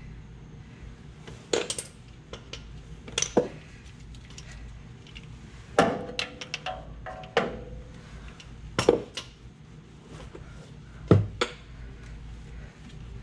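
Hand tools clinking and clanking on metal under a truck: a ratchet and socket being fitted and worked on the oil cooler bolts of an International 6.9 diesel. Sharp metallic knocks come every second or two, a few ringing briefly.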